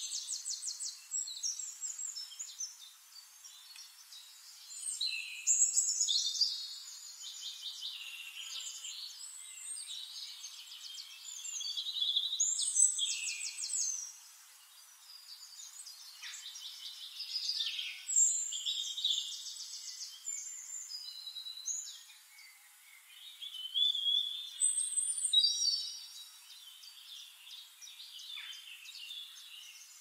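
Songbirds singing and chirping: rapid high trills and chirps that swell in bursts every five or six seconds, with quieter calls between.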